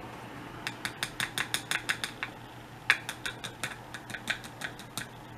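Two quick runs of light clicking taps, about six a second, with a louder knock about three seconds in, from a plastic loose-powder jar being handled and tapped.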